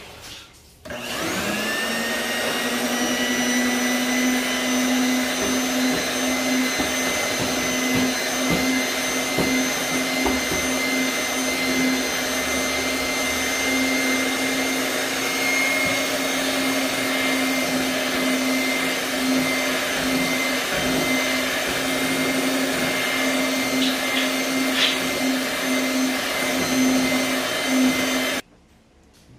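Small electric kitchen mixer motor switched on about a second in, its pitch rising quickly to a steady whine, running continuously, then cut off sharply near the end.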